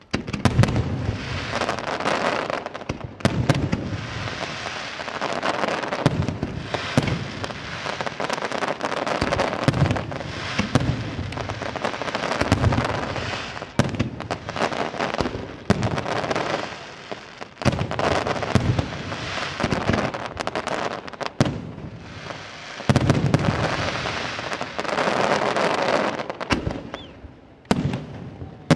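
Aerial fireworks display: a continuous barrage of shell bursts, bangs and crackle, starting abruptly and easing briefly near the end before another loud burst.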